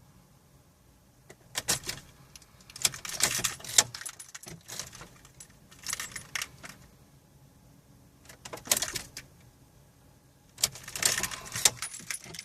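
Car keys jangling on a keyring in about five short rattling bursts, with no engine cranking or running between them, as the Volkswagen GTI fails to start.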